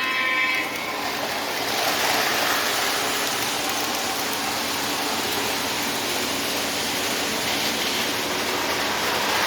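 Norfolk Southern O gauge model diesel locomotives running around the track, a steady rushing noise.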